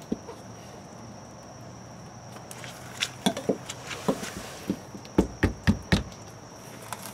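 A metal scraper blade scraping and knocking against an RV's sidewall around the city water inlet flange, working off old sealant. The strokes come as a run of short, sharp scrapes and knocks from about three seconds in, the hardest four of them close together near the end.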